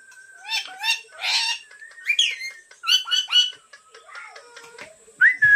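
Pet parrot vocalising in a run of short squawks and chirpy calls, then a rising whistle near the end.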